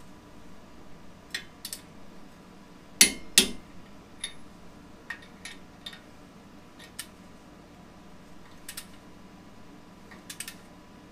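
Metal clicks and clinks of a torque wrench and socket on the lug nuts of a wheel spacer on a Toyota hub as they are torqued down. Two sharp clicks come close together about three seconds in, then fainter scattered clicks.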